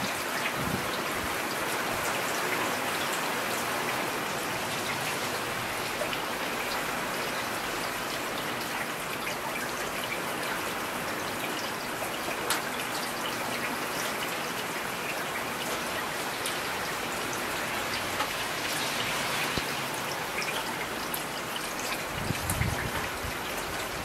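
Heavy rain falling steadily, an even hiss with scattered drop ticks. A short low rumble comes near the end.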